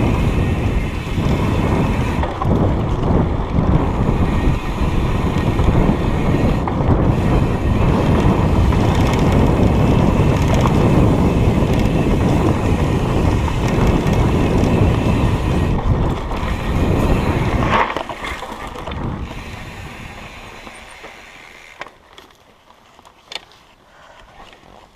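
Wind buffeting the microphone and trail rumble while riding fast down a dirt trail, an even rushing noise with no engine note. About 18 seconds in it drops off sharply and fades away as the ride slows to a stop, leaving a few faint clicks.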